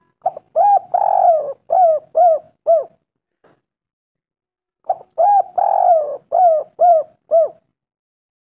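Spotted dove (tekukur) cooing: two phrases of about six arched coo notes each, the second and third notes run together into a longer one, with a pause of about two seconds between phrases.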